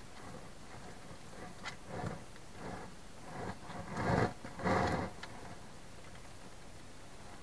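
Hedgehog pushing through the entrance and moving about inside a plastic feeding box: a run of short scraping, rustling bursts that grow louder, loudest about four to five seconds in, with a few sharp clicks.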